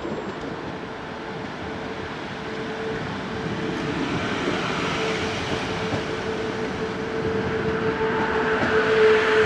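A passenger train moving at a railway station, with a steady whine over a rushing rumble. The sound grows louder, and a second, higher tone joins near the end.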